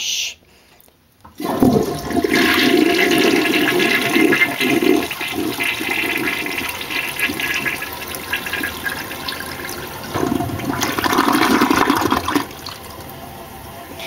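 1977 Peerless toilet, a bowl with no siphon jet, flushing: about a second and a half in, water rushes and swirls down the bowl, surges again near the end, then drops to a quieter steady run of water.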